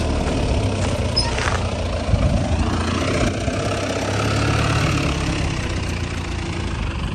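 Tata Sumo's engine running steadily at low revs as the vehicle creeps over a steep, rough track.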